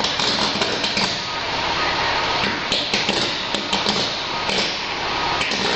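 Electrical arcing on overhead power lines: a loud, continuous crackle with many sharp pops and snaps.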